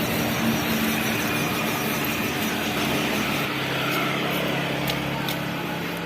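Handmade 1/16 scale 4x4 RC truck running, a steady low hum under a rushing noise with a few small clicks.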